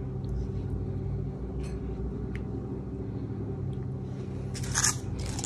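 A steady low mechanical hum, like a fan or appliance running in the room, with a few faint clicks and a short rustle near the end.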